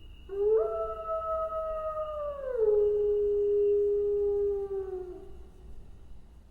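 A wolf howling: one long howl that starts about a quarter second in, holds a steady pitch, drops to a lower pitch about halfway through, and trails off near the end.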